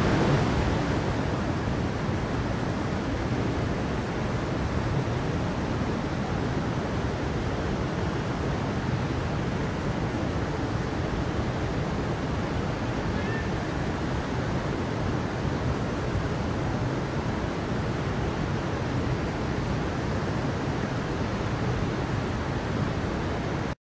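Steady rushing of a mountain stream running over rocks, an even wash of water noise that cuts off suddenly near the end.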